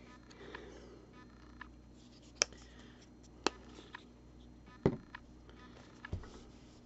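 Small handling sounds of a paint bottle and plastic palette on a worktable: a few short, sharp clicks and taps about a second apart, the loudest a duller knock about five seconds in, as black paint is dispensed into the palette.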